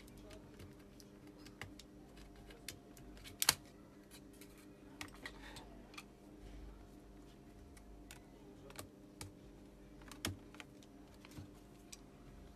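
Irregular small clicks and taps of plastic and metal as the Mercedes W204 C-Class display unit is pried apart with a screwdriver, its LCD panel being freed from the frame and circuit board. The sharpest click comes about three and a half seconds in, another near ten seconds, over a steady low hum.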